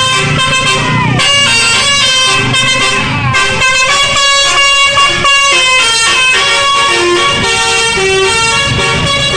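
Bus 'telolet' air horn, a set of several horn trumpets tuned to different notes, playing a quick melody of stepped notes with chords, and a couple of falling pitch slides.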